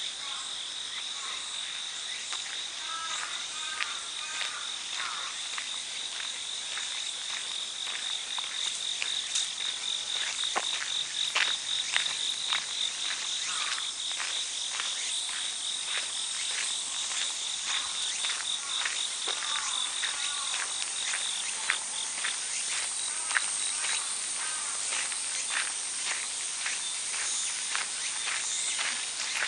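Insects trilling in a high, fast-pulsing band that fades about halfway through, with a still higher trill going on underneath. Footsteps crunch on a gravel path, and a few short chirps come in now and then.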